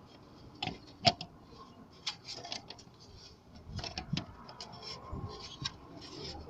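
Irregular clicks and knocks of hand tools at work, the loudest a sharp knock about a second in, with a cluster of clicks near the middle.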